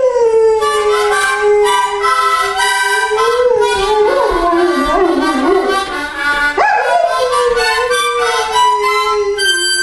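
A mastiff howling along to a harmonica: long, wavering howls slide down in pitch, with a fresh howl rising sharply about two-thirds of the way through and then slowly falling, over the harmonica's chords.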